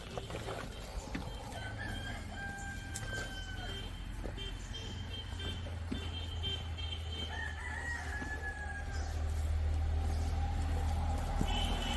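Rooster crowing twice, several seconds apart, over a steady low hum.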